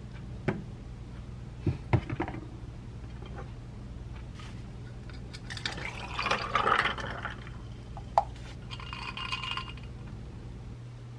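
A few sharp clicks as a knife slices strawberries, then iced coffee poured from a bottle into a glass mug over ice for about two seconds. A clink and a short ringing from the glass follow, over a low steady hum.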